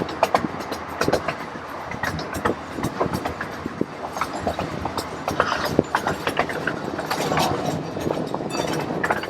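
Riding in a miniature railroad's open passenger car: wheels clacking over the track and the car rattling as the train runs along, with frequent irregular knocks over a steady rumble.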